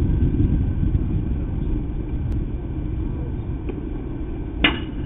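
Steady low rumble of outdoor background noise, with one sharp crack about four and a half seconds in.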